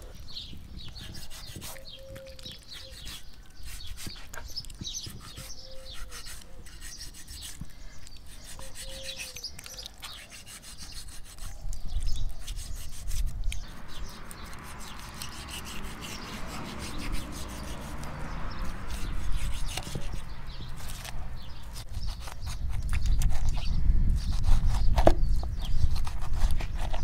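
Knife cutting and scraping through a raw beef joint on a wooden cutting board, the strokes growing louder in the second half.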